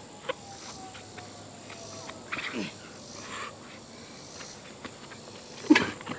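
Two boys scuffling on grass during backyard wrestling: a few light scuffs and a short grunt partway through, then a louder, falling grunt or yell near the end as they grapple, over a faint steady outdoor background.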